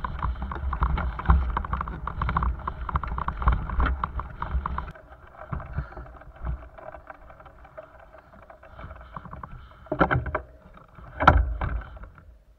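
Wind rumble on the microphone of a camera carried on a moving bicycle, with quick rattling knocks as the bike rolls over bumpy grass; it eases about five seconds in, and two louder knocks come near the end.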